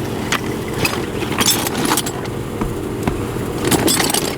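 Scattered clicks and knocks of hands working on a car's plastic interior trim panels, over a steady low hum.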